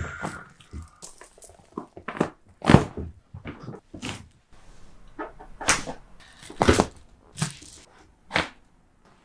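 Back joints popping and cracking under a chiropractic adjustment, about ten short sharp cracks and thuds spread across several seconds, the loudest two about a third and two-thirds of the way through.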